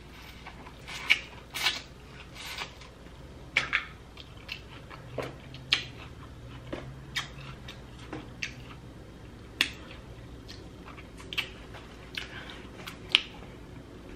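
Close-miked eating sounds: irregular wet smacks and clicks of chewing and lips, a few a second at the busiest.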